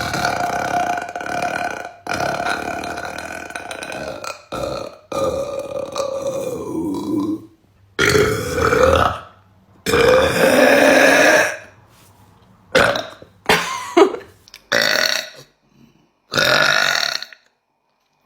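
A young woman belching: long, drawn-out belching over the first seven seconds or so that drops in pitch at its end, then a string of shorter separate belches.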